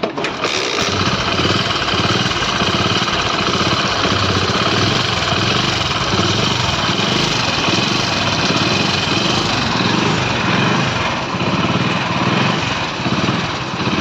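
Freshly rebuilt Hero HF Deluxe single-cylinder four-stroke motorcycle engine running steadily after setting in abruptly, its level wavering a little near the end. Its tappets are deliberately set slightly loose for running-in.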